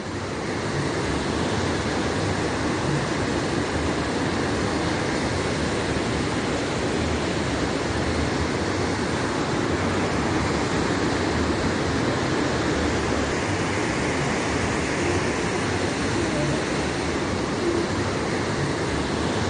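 Heavy rain and wind: a steady, dense rushing noise that does not let up.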